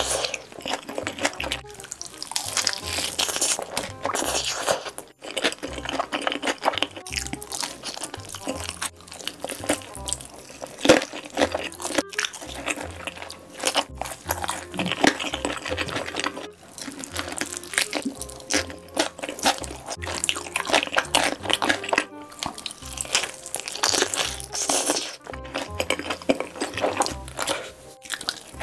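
Crunching and chewing of sauce-glazed fried chicken, bites coming irregularly and closely miked, over background music with a stepping bass line.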